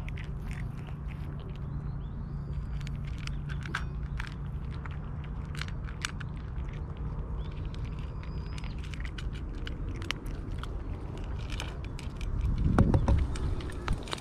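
Two cats crunching dry cat kibble from a metal dish: a quick, irregular run of crisp crunches and clicks. About twelve seconds in, a brief low rumble swells up and is the loudest thing.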